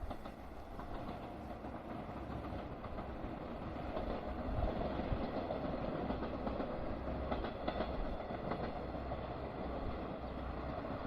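An electric train passing on the line, a steady rumble that grows louder about four seconds in, with its wheels clacking over the rail joints.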